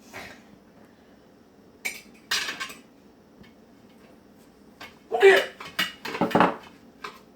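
Dishes, pans and cutlery clattering during cooking: scattered clinks and knocks, with the busiest and loudest run of them about five seconds in.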